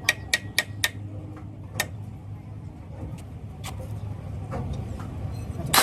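A quick run of sharp taps, about four a second, in the first second, then a few scattered single taps, over a steady low hum. A louder rough burst comes at the very end.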